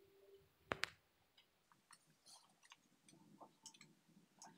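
Near silence, broken about a second in by two quick plastic clicks from a toy cap pistol being handled, then a few faint ticks.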